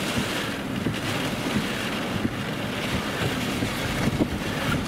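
Strong wind rushing over the microphone in steady, buffeting gusts, with a low rumble underneath.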